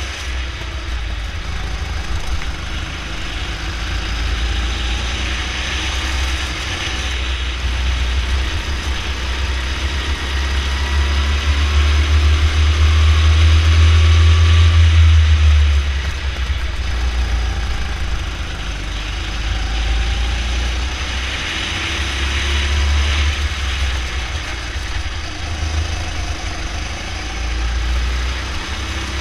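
Go-kart's small engine running under throttle as the kart laps a track, heard from on board with a heavy low rumble. It gets louder to its peak about twelve to sixteen seconds in, then drops back and rises and falls with the corners.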